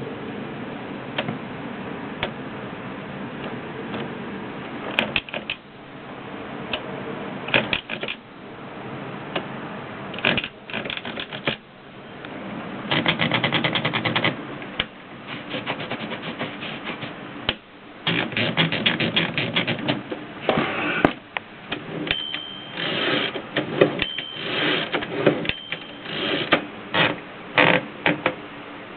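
Mercedes Superba typewriter being typed on: irregular runs of sharp mechanical key strikes, some fast, with short pauses between them. A short, high, steady tone sounds a few times near the end.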